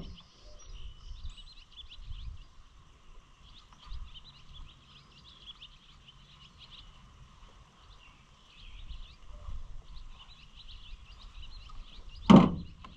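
Outdoor ambience with birds chirping faintly and a low rumble, then a single sharp knock near the end.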